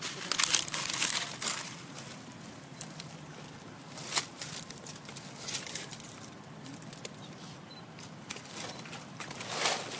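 Dry leaves rustling and crackling in short irregular bursts: a longer stretch in the first second and a half, a sharp crack about four seconds in, and more rustles around five and a half seconds and near the end.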